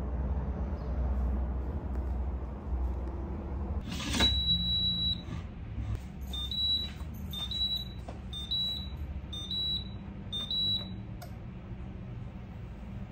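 AMC Audiotherm cooking alarm beeping: a click, then one long high beep followed by a run of short beeps at the same pitch, about one a second.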